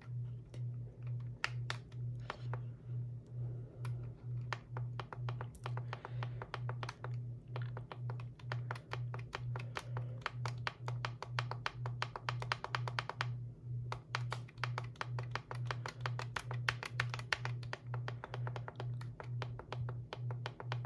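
Buttons on an Etón Zoneguard weather radio clicking as they are pressed over and over to scroll through its alert settings, at times several clicks a second. Under them runs a low hum that pulses about twice a second.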